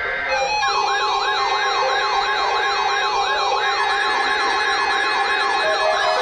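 NOAA Weather Radio warning alarm test heard on several weather radio receivers at once. Steady alarm tones sound together, and from about half a second in a siren-like tone sweeps up and down about two to three times a second over them.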